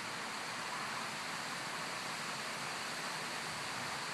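Strong wind rushing through the leafy crowns of tall trees, a steady rustling hiss: the gusty wind ahead of a thunderstorm.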